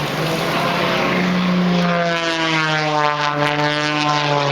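Propeller race plane's six-cylinder piston engine droning steadily as it flies past, its tone sweeping as it passes about three seconds in.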